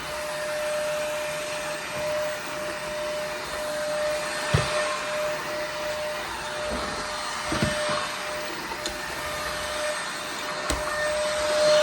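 Cordless stick vacuum with a high-speed brushless motor running steadily: a constant whine over rushing-air hiss. A few short knocks come through, the clearest about halfway in and near the end.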